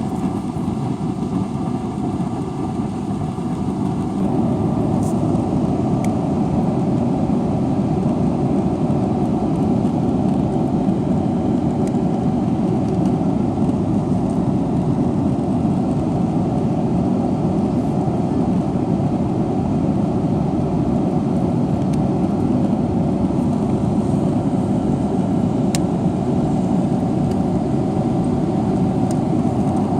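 Steady rumble of a Boeing 777-300ER's jet engines and airflow heard from inside the passenger cabin. A few faint whining tones stop about four seconds in as the rumble gets slightly louder, and a few faint clicks come through.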